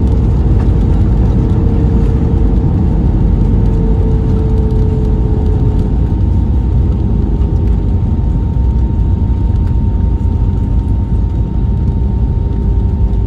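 Cabin noise of an Airbus A320neo on its landing roll, heard from a seat over the wing: a loud, steady rumble of wheels on the runway and the engines, with a thin steady engine whine and a fainter lower tone that sags slightly in pitch.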